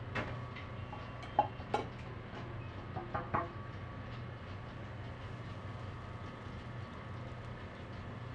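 Light clinks and taps of cooking utensils at a crepe griddle, a few in the first three and a half seconds, over a steady low hum.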